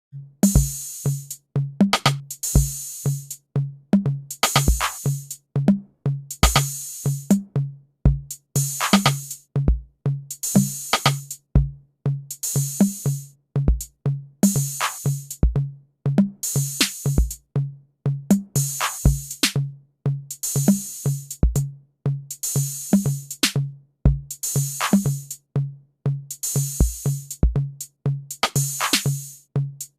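Programmed drum-machine beat made in BandLab, looping: deep pitched drum thumps about three times a second, with a bright hissing hit lasting about a second roughly every two seconds.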